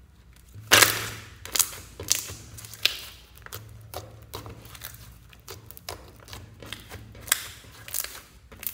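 Glitter slime squished and pressed by hand, giving an irregular series of sticky pops and clicks, the loudest about a second in.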